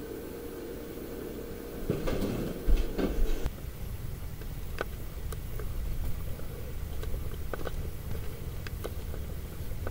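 Quiet room tone, then rustling and a heavy thump about two to three seconds in as someone moves and gets up. After that comes a steady low rumble of wind on the microphone outdoors, with a few faint clicks.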